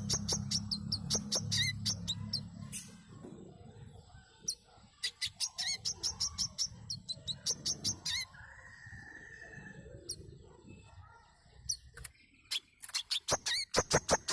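Brown-throated sunbird (burung manggar) calling: fast runs of short, high, sharp chirps in the first two seconds and again near the end, with scattered single notes in between. A low hum runs underneath for the first few seconds.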